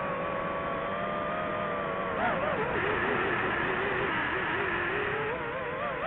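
DJI FPV drone's motors and propellers whining. The pitch holds, drops sharply about two seconds in, then climbs again near the end as the throttle changes.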